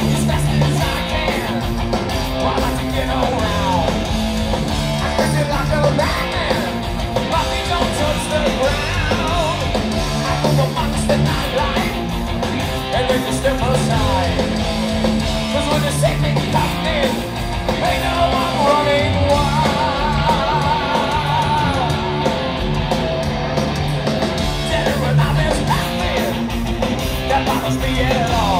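Heavy metal band playing live: distorted electric guitars over bass and drums, in a concert bootleg recording.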